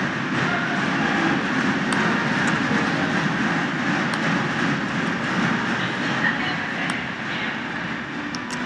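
Steady noise of a large basketball arena crowd during live play, with a few short sharp clicks from the court.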